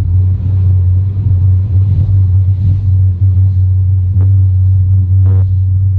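Boat outboard motor running steadily under way, a loud low drone. A few short thumps come near the end.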